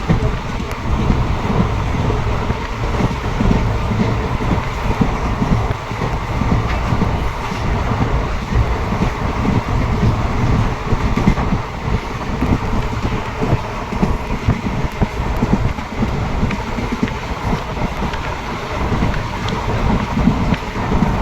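Train running along the track: a steady, loud low rumble with some clatter from the wheels on the rails.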